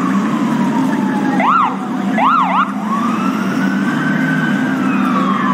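Emergency vehicle siren wailing with a slow falling tone. About a second and a half in it gives two quick up-and-down whoops, then climbs back into another slow rise and fall, over a steady low hum.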